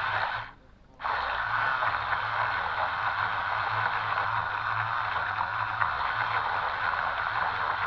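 Twin small 130-size electric motors of a toy RC boat running, a steady buzzing whir mixed with water noise; it cuts out briefly about half a second in and picks up again a moment later.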